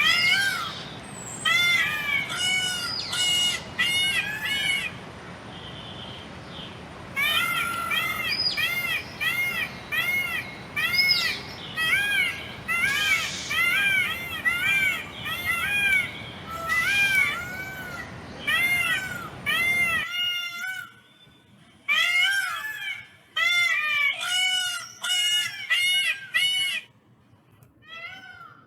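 Peacock calling in bouts of short, rising-and-falling calls, about two a second, with brief pauses between bouts. A steady background hiss stops about two-thirds of the way through, where the calls continue on a quieter recording.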